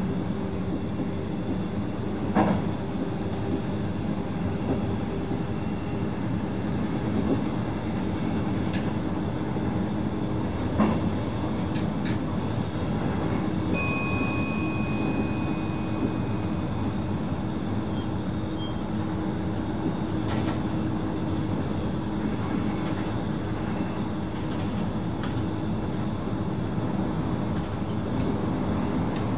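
Running noise inside the driver's cab of an NS VIRM double-deck electric train under way: a steady rumble with a low hum and occasional knocks. About halfway through, a short electronic beep sounds once.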